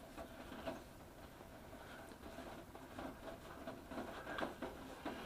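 Microfiber towel patted against a face to dry it: soft, irregular taps and rustles over a faint steady hiss.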